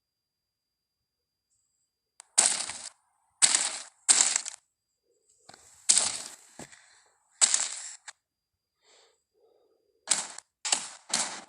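Carnotaurus sound effects: a series of short, sharp bursts separated by silences, about five spread over the first eight seconds, then a quicker run of them near the end.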